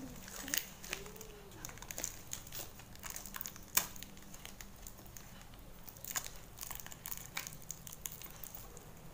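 Plastic wrapping crinkling and crackling as it is handled and opened by hand, in scattered faint rustles and clicks with one sharper snap about halfway through.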